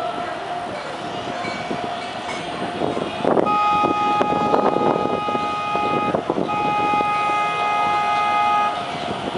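A passenger boat's horn sounding two long, steady blasts, the second following a short break after the first.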